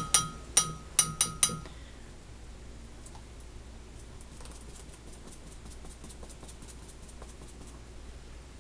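Metal clinks from a wire-mesh strainer and spoon knocking against a metal bowl, about seven quick ringing strikes in the first two seconds. After that come faint soft ticks and scraping as chile sauce is worked through the mesh.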